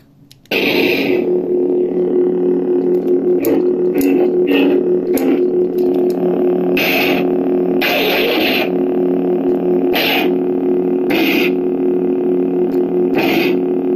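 Lightsaber sound board (Nano Biscotti V4) playing through the hilt's small speaker. It ignites about half a second in, then holds a steady electric hum broken by about nine short, bright bursts of the font's clash and swing effects.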